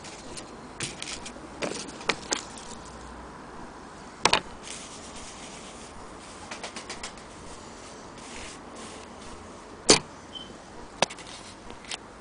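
Handling noise around an antique hand-crank sewing machine: scattered clicks and taps with cloth rustling, the loudest knocks about four seconds in and near ten seconds. There is no steady stitching rhythm.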